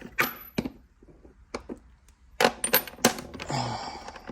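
Small metal parts and tools clinking together: a run of sharp, ringing metallic clicks, then a brief scrape near the end.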